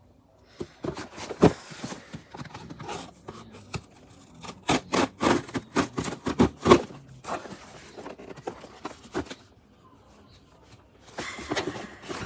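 A parcel being opened by hand: irregular scraping, rustling and tapping of packaging, with a short pause near the end before the rustling picks up again.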